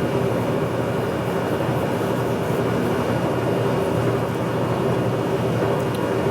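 Horizontal boring mill running steadily through a line-boring pass on a cast iron planter hitch, an even mechanical hum with steady tones and a faint high whine.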